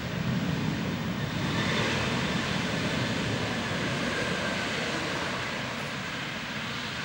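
Jet engines of an Airbus A330-202 rolling out along the runway after landing: a steady, dense engine noise that swells about a second and a half in and then eases off slowly.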